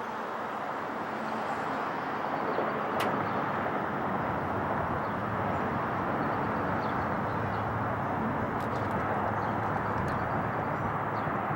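Jet noise of a Boeing 777 on approach, a steady rushing roar that grows a little louder about two seconds in and holds. A single sharp click sounds about three seconds in.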